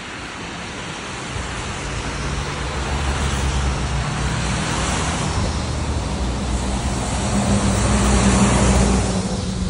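A motor vehicle passing close by: a low engine hum and tyre noise grow steadily louder, peak near the end, then fall away.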